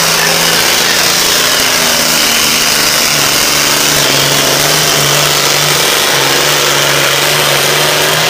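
A Super Farm class pulling tractor's turbocharged diesel engine running flat out under load as it drags the weight-transfer sled down the track. The sound is loud and steady, with small shifts in engine speed.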